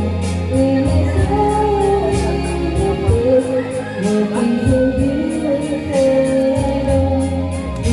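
Background music with a sung melody over a steady beat.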